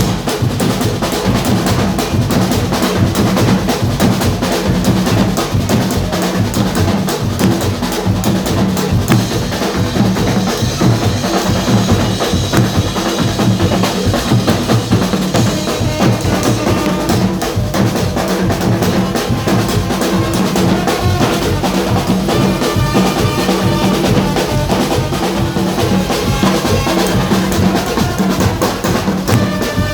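Carnival band music driven by drums: fast, dense percussion with bass drum and snare hits over a steady low musical line.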